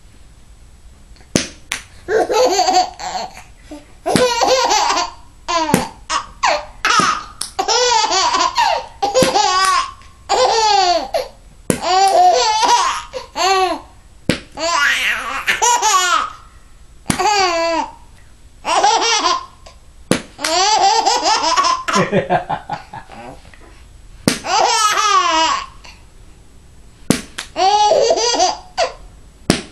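A baby laughing hard in bout after bout, each a second or two long with short pauses between. Now and then there is a sharp click or tap.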